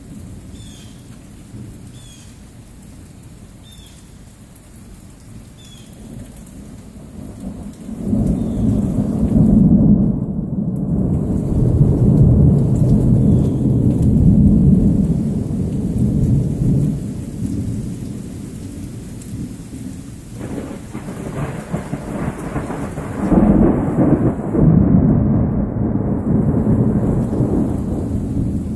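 Thunder rolling over steady rain from a thunderstorm moving away. A long low rumble builds about eight seconds in and rolls on for over ten seconds, then a second peal swells about two-thirds of the way through.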